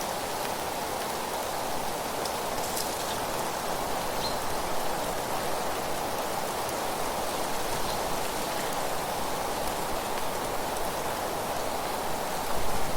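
Steady, dense rushing noise of an outdoor nature soundscape, rain-like in texture, with a brief louder swell near the end.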